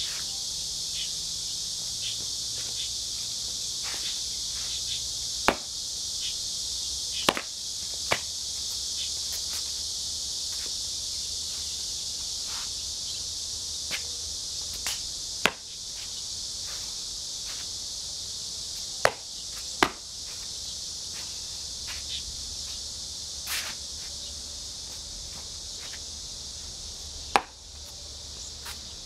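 A steady, high insect chorus, with irregular sharp slaps and stamps from a xingyi quan practitioner's strikes and footwork on concrete, about seven of them loud and many fainter.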